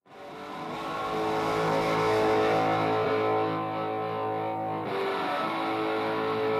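Background music with guitar, fading in over the first second and then holding steady sustained chords.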